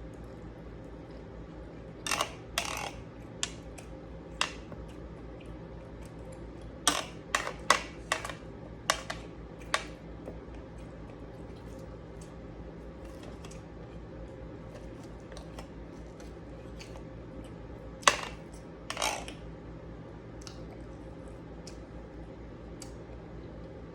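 Eating utensils clicking and clinking against a plate in scattered bursts: a few taps about two seconds in, a quick run of them around seven to ten seconds, and two more near the end, over a steady low hum.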